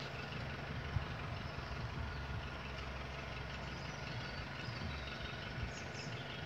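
A car engine idling steadily, a low even hum.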